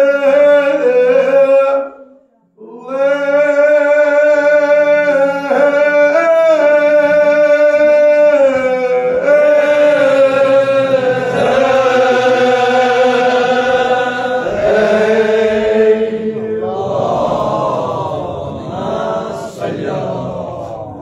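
Kashmiri marsiya, a Shia elegy, chanted in long held notes by a male voice, with a short break about two seconds in. Past the middle more voices overlap in group chanting, growing looser and more scattered towards the end.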